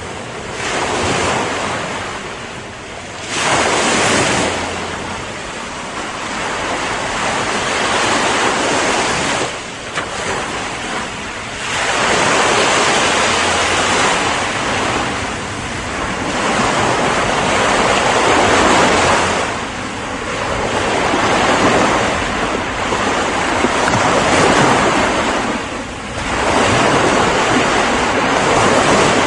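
Ocean waves breaking and washing on the shore, a continuous surf that swells and eases every few seconds.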